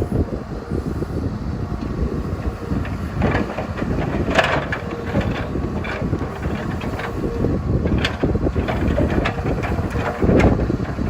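Excavator's diesel engine running steadily, with several sharp metal clanks and knocks from the working machine, the loudest near the end.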